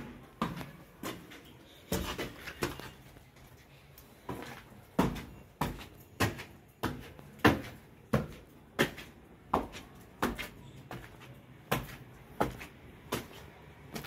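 Footsteps on a hard concrete floor: sharp, even steps about every two-thirds of a second.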